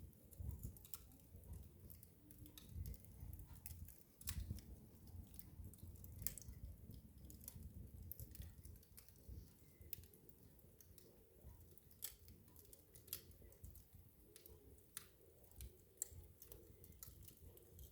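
Wood fire in a fireplace crackling softly: scattered, irregular sharp snaps and pops over a low rumble of burning logs.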